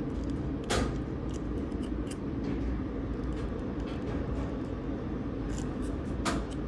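Light clicks and taps as the homemade battery tester's ends are touched against the LED lamp's board, two sharper than the rest, about a second in and near the end, over a steady low background rumble.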